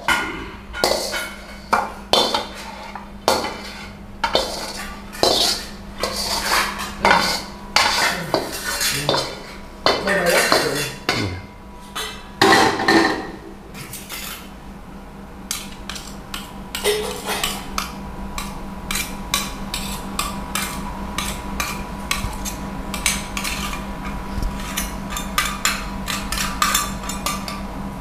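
A metal spoon clinks and scrapes against a steel bowl and plates as rice is scooped and served. There are many sharp knocks, heavier and more spaced in the first half and lighter, quicker taps later, over a steady low hum.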